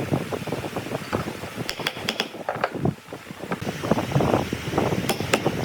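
A quick, irregular run of sharp clicks and knocks over a steady noise, coming thicker in the second half.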